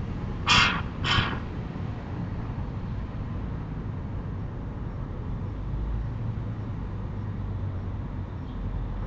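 A crow cawing twice in quick succession, two short harsh calls about half a second apart, over a steady low background rumble.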